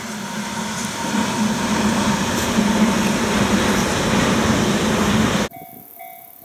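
Tobu 100 series Spacia electric express train passing at speed: an even rush of wheels on rail and car noise that builds to its loudest as the cars go by. It cuts off suddenly about five and a half seconds in, leaving faint music.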